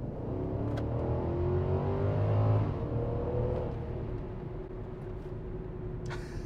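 The 5.0-litre V8 of a 2011 Infiniti FX50S, heard from inside the cabin, pulling hard under acceleration. Its note climbs and grows louder over the first three seconds or so, then drops back to a steadier, lower and quieter drone.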